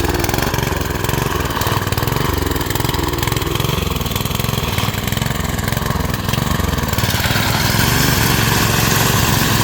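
Small rice reaper's engine running steadily, growing a little louder in the last couple of seconds.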